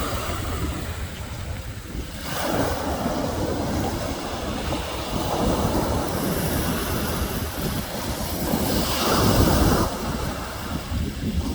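Wind buffeting the microphone over the wash of waves, swelling louder about two seconds in and again later on.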